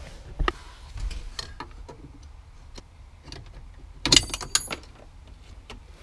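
Small metallic clicks and scrapes of a cotter pin being worked out of the brake light switch linkage on the brake pedal, with a louder burst of sharp metallic clicks and a brief ringing about four seconds in.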